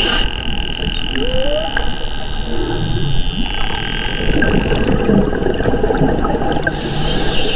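Bottlenose dolphins whistling underwater: several quick high whistles that sweep down and up, one held whistle, over a steady underwater crackle and hiss.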